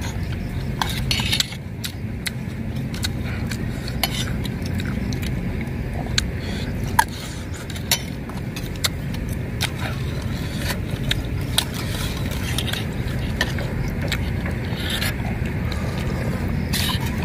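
Metal spoons clinking and scraping against metal soup bowls in scattered short clicks, over a steady low rumble.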